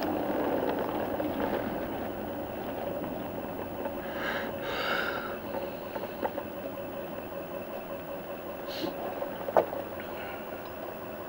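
Steady vehicle cabin rumble with a faint steady hum, heard from inside the moving vehicle. Two short hisses come about four to five seconds in, and a single sharp click comes near the end.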